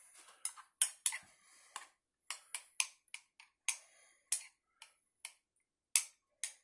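Metal table knife clicking and scraping against a ceramic bowl while scooping out thick sauce: a string of sharp, uneven clicks, about two or three a second.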